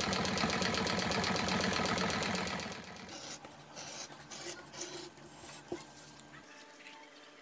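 A sewing machine runs fast and steadily for about two and a half seconds, then stops. After it, faint scratching and small clicks come from a hobby knife trimming a strip of leather against a steel ruler.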